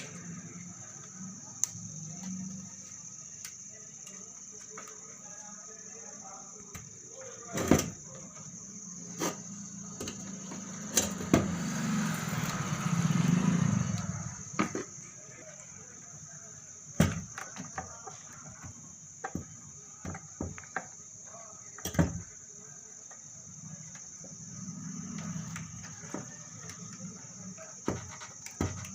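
Scattered sharp clicks and knocks of tools and parts being handled on an opened power amplifier, with a louder scraping rustle about 11 seconds in. A steady high insect-like chirring runs underneath.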